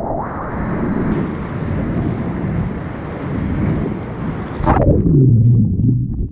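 Action camera riding through breaking whitewater: wind buffeting the microphone over the rush of churning surf. About five seconds in the camera goes under, and the sound drops to a loud, muffled low rumble before cutting off.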